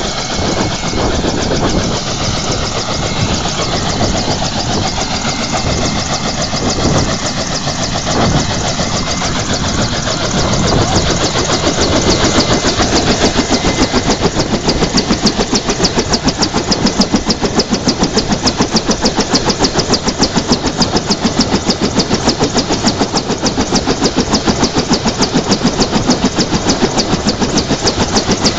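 Bell UH-1 Huey helicopter running on the ground: turbine whine under a rapid, even beat of the rotor blades, growing louder about eleven seconds in.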